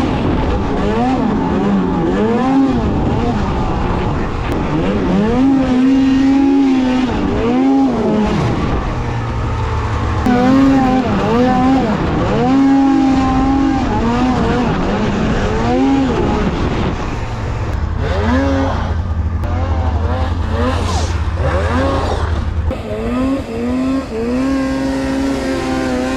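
Snowmobile engine revving up and dropping back again and again as the throttle is worked in deep snow. Its pitch climbs and falls every second or two.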